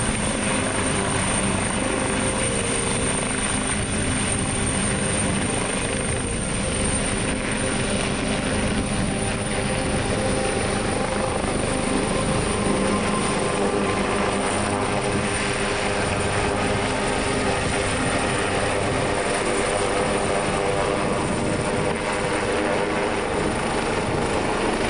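AgustaWestland AW139 twin-turbine helicopter flying low and climbing away after take-off. Its rotor and turbine noise is a steady drone at an even level.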